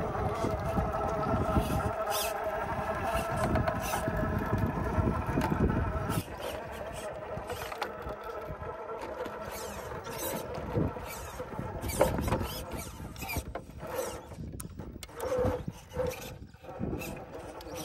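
Electric motor and drivetrain of a Redcat Ascent RC rock crawler whining steadily as it climbs over rocks. About six seconds in the whine drops away, and short clicks and knocks follow as it crawls slowly over the rock.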